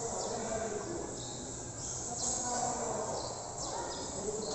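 High-pitched chirping: short chirps, each falling in pitch, repeating about once a second.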